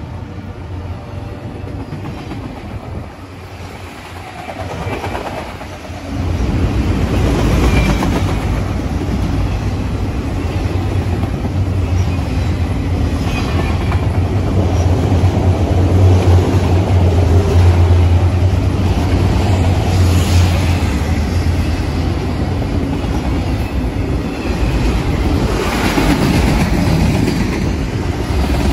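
Freight train of autorack cars rolling past close by: a steady rumble of wheels on rail with clickety-clack over the joints, growing markedly louder and deeper about six seconds in.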